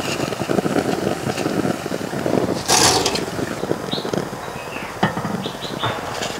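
Hot oil crackling and sizzling in a steel pot as a batch of deep-fried jackfruit fritters is lifted out on a wire skimmer, with a brief scraping clatter just before the three-second mark.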